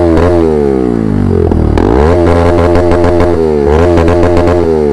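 Bajaj Pulsar NS200's single-cylinder engine revved in several quick blips while the bike stands, the pitch rising and falling back each time. The sound comes out through an aftermarket Akrapovic exhaust.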